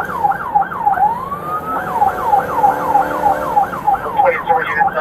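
Police patrol car siren running, heard from inside the car's cabin. It cycles rapidly at about three sweeps a second, with one slow rising wail about a second in before the fast cycling resumes.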